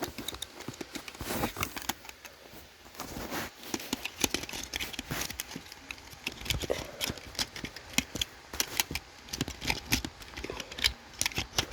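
Irregular clicks, taps and small knocks of a plastic smoke alarm and its parts being handled, many sharp ticks in quick succession.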